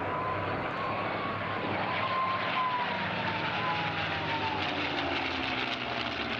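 Piston engine of a P-51 Mustang in flight, a steady engine drone with a high whine that slowly falls in pitch over the second half as the fighter passes.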